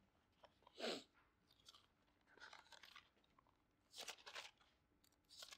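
Faint rustling of thin Bible pages being turned by hand, about four soft swishes spread over a few seconds, against near silence.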